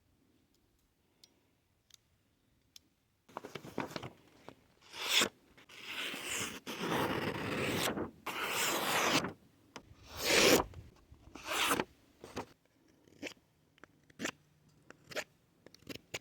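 Hypertough multi-tool worked against some material: a few faint clicks, then a run of irregular rasping, scraping strokes starting about three seconds in, each half a second to a second and a half long. They thin out into shorter, lighter scrapes near the end.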